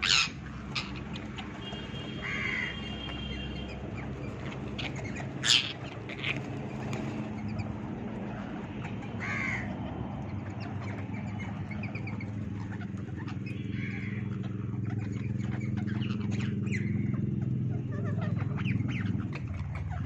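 Rose-ringed parakeets giving short, sharp screeches every few seconds, the loudest just at the start and about five and a half seconds in, with quieter calls and clicks of beaks working at dried corn cobs between them. A steady low hum runs underneath.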